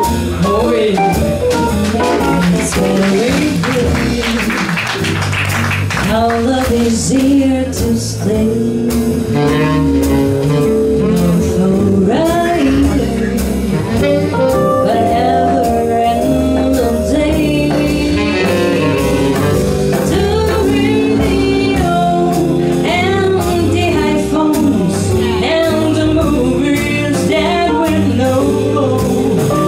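Small swing jazz band playing live: a woman sings into a microphone over trumpet, saxophone, piano, guitar, double bass and drums, with a steady swing beat.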